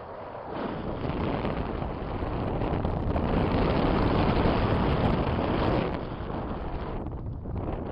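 Strong wind rushing and buffeting over the microphone. It swells in the middle and eases off near the end.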